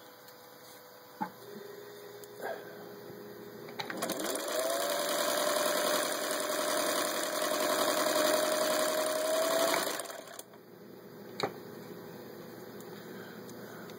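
Singer 15-91 sewing machine's potted electric motor driving a Singer 121201 pinking attachment as it cuts a strip of denim. About four seconds in, the machine speeds up with a rising whine, runs steadily for about six seconds, then stops abruptly. A few faint clicks come before and after the run.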